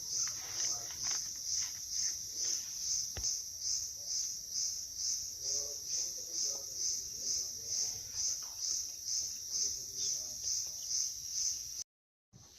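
A cricket chirping steadily, a high-pitched pulse about twice a second, with faint voices in the background. It cuts off suddenly near the end.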